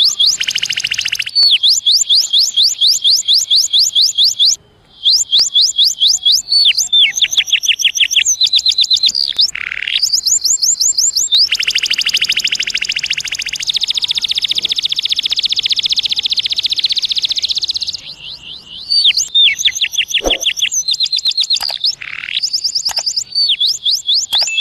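Male domestic canary singing a long song of fast, high, repeated trills. The phrases change every second or two, with one long rolling trill in the middle, and the song breaks off briefly twice.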